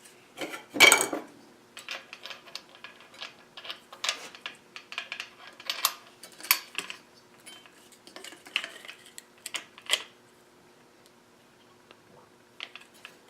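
Irregular metal clinks and knocks as an angle grinder and its modified steel guard are handled, with the loudest knock about a second in and a short lull near the end.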